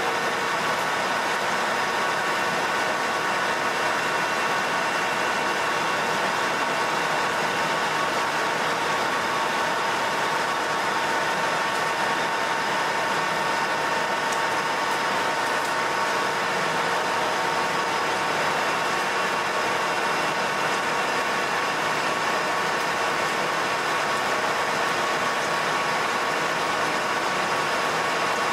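Colchester Master 2500 centre lathe running steadily while turning a shoulder on a bolt blank: a constant whine with a hiss of cutting.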